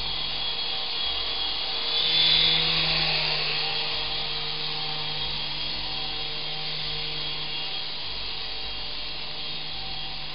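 Syma S108G mini remote-control helicopter in flight: the steady whir of its small electric motors and coaxial rotors, swelling louder about two seconds in.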